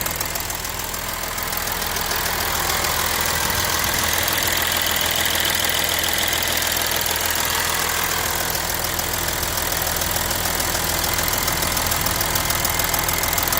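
Audi A6 3.0 TDI V6 turbodiesel engine idling with a loud, fast, regular metallic ticking from the passenger side of the engine; the cause of the tick has not been found.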